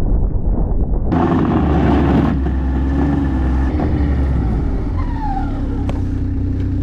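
Ski-Doo Expedition snowmobile engine running steadily as the sled is driven across snow. About a second in, the sound abruptly turns fuller and brighter.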